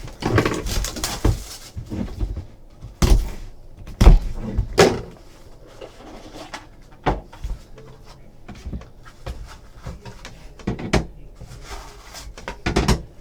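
A factory-sealed trading card box being unsealed and opened by hand: rustling of the wrapping and packaging, with several sharp knocks and clicks, the loudest about four seconds in.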